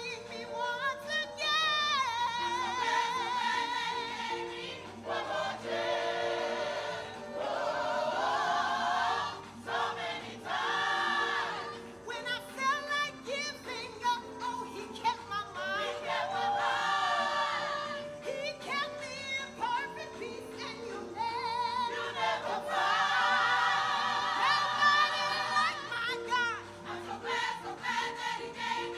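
Gospel choir singing over a steady instrumental accompaniment, in phrases that swell and pause every few seconds.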